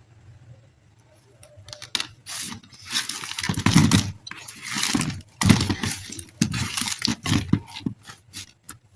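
Plastic packaging of a soft air-dry clay pack crinkling and rustling as it is handled and opened, in irregular bursts with sharp clicks. It starts after a brief pause and ends as a few separate clicks.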